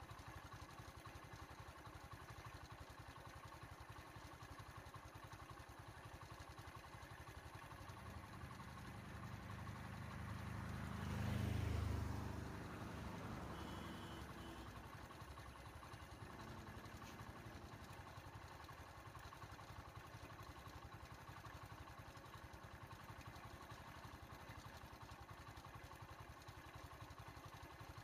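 A small truck drives past on the road, its engine growing louder over several seconds, loudest about halfway through, then fading away; a faint steady background hiss the rest of the time.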